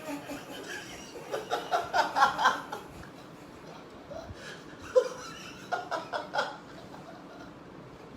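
People laughing in two runs of quick, repeated bursts: one starting about a second and a half in, and another about six seconds in.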